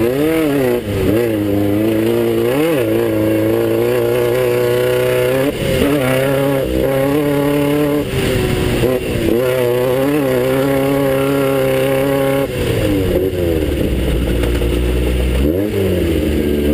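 Class 9 off-road race car's air-cooled Volkswagen engine running hard under load. Its pitch climbs and falls again and again, dropping briefly every few seconds as the throttle is lifted or a gear is changed, then rising back up.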